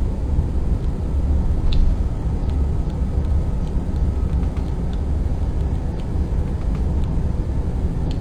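Steady low rumble of road and engine noise from a car cruising on a highway, heard inside the cabin as a dashcam records it, with a few faint clicks.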